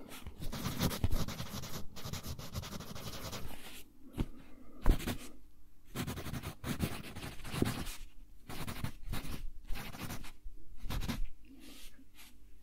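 Wooden graphite pencil writing on lined paper, close to the microphone: scratchy strokes in short irregular runs with brief pauses between words.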